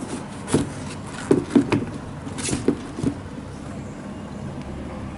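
Handling noise: a few short soft knocks and rustles in the first three seconds as sneakers are moved about on cardboard shoeboxes, then only a steady low background hum.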